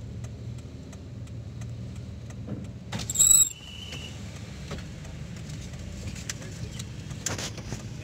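Steady low engine hum of a small Toyota car heard from inside the cabin as it creeps forward. About three seconds in, a short, loud, shrill whistle blast, typical of a parking attendant's whistle, is followed by a fainter short peep.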